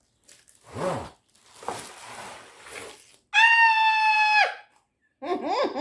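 Cardboard box and packaging rustling as it is searched, then a high-pitched voice holds one squealing note for about a second before falling away.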